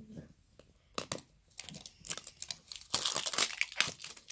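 Crinkling and tearing of the plastic wrapper as it is peeled off a toy surprise ball by hand. Scattered crackles start about a second in and grow denser and louder from about three seconds in.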